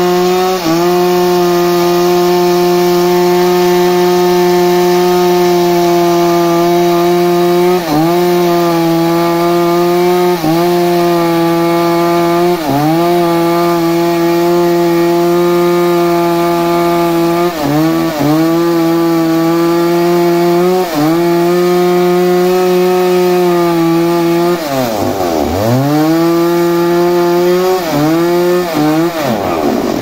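Stihl two-stroke chainsaw running near full throttle as it cuts through a large wooden slab, with brief dips in engine pitch as the chain bites. In the last few seconds the engine speed drops sharply and climbs back up several times.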